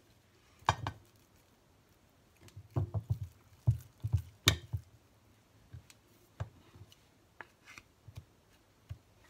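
Spatula and ladle scraping and knocking against a glass baking dish as thick, hot cooked mung bean paste is scooped in and pressed flat: irregular clicks and soft thuds, with a busier cluster from about two and a half to four and a half seconds in and only scattered taps after.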